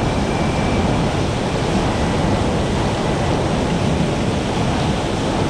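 Steady rush of wind and water from a small motorboat running at speed: wind buffeting the microphone and the wake churning, with no distinct engine tone standing out.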